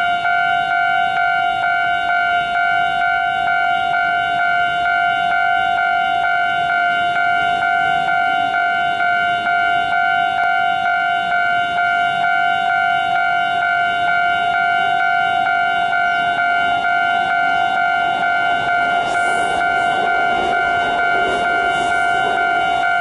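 Railway level-crossing warning bell ringing continuously, a steady electronic tone with overtones. Near the end, the rumble of an approaching train grows underneath it.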